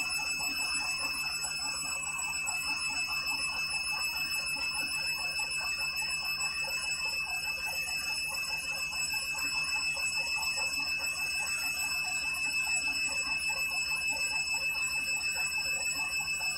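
Candy washing machine on its 400 rpm final spin: the drum turns with a fast, even rattle over a steady high whine.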